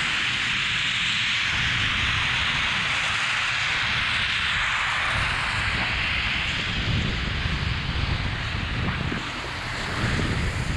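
Wind rumbling unevenly on the microphone of a skier moving downhill, over a steady hiss from snowmaking guns blowing across the slope. The rumble grows choppier in the second half.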